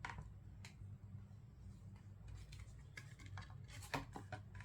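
Quiet room with a steady low hum and a scatter of faint clicks and taps from about two and a half seconds in, the sound of a reading pen and book being handled.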